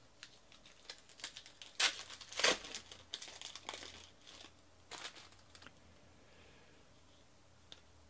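Foil trading-card pack being torn open and its wrapper crinkled by hand: a run of irregular crinkles and rips, loudest about two seconds in, dying away just over halfway through.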